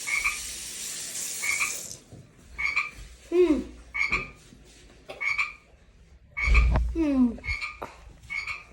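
Frog croaking over and over, a short call about once a second. A steady hiss cuts off about two seconds in. Later come two falling glide sounds and a low bump.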